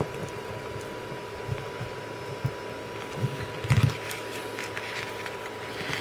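Soft handling sounds of a screwdriver and wires at a toggle switch's screw terminals: a few quiet knocks and rustles, the loudest just under four seconds in, over a steady faint hum.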